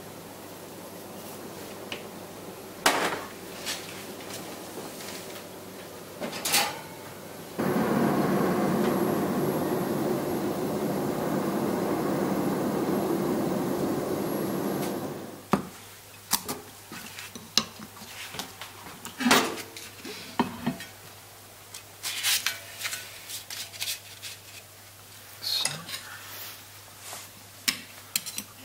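A few sharp clicks as sea salt is shaken onto king crab pieces on a wire grilling rack; then a steady hiss lasting about seven seconds as the crab grills under a salamander grill; then scattered clicks and knocks of a plate, chopsticks and utensils on the counter.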